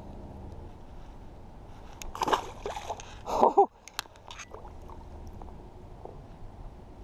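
Splashing water as a smallmouth bass is released into the river and kicks away, a burst of splashes and gurgles about two to three and a half seconds in. A steady rush of river current runs underneath.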